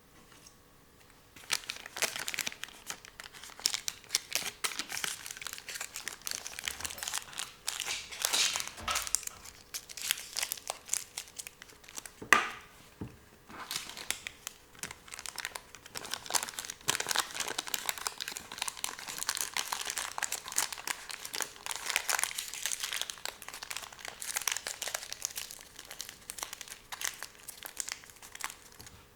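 Plastic toy packaging crinkling as it is handled. It starts about a second and a half in and goes on as dense crackling, with one sharper crackle about twelve seconds in followed by a brief lull.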